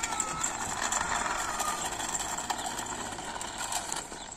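Small plastic wheels of a child's three-wheeled kick scooter rolling over rough asphalt: a steady rattling rumble that fades slightly near the end as the scooter rolls away.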